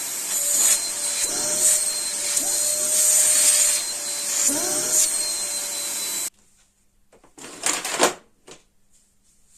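Small handheld vacuum cleaner running with a steady whine and hiss, its loudness swelling and dipping, then switched off about six seconds in. A few clicks and knocks follow.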